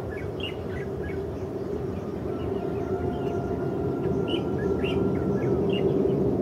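Twin-engine jet airliner's engines at takeoff power during the takeoff roll: a steady rumble with a faint whine, growing gradually louder as the aircraft approaches. Birds chirp over it now and then.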